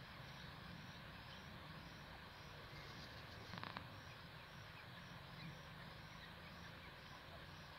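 Near silence with a faint steady outdoor hiss. About three and a half seconds in there is a brief scratchy rustle: a grey francolin shuffling its body and wings in dry soil as it dust-bathes.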